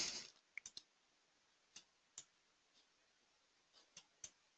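Near silence: room tone with several faint, scattered computer clicks.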